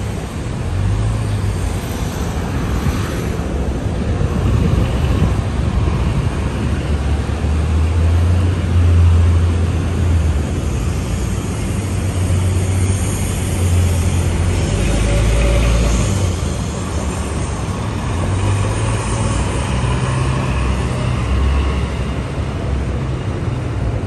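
City street traffic noise: cars and buses passing on a busy avenue, with a steady low rumble that swells at times.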